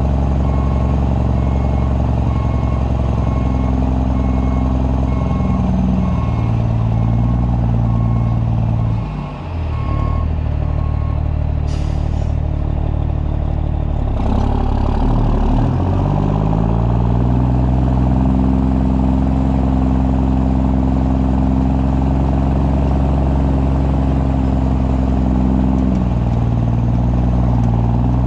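Unmuffled diesel engine of an oilfield bed truck running under load, its note dipping and shifting around the middle, then rising and holding steady. A backup alarm beeps about once a second for the first ten seconds or so.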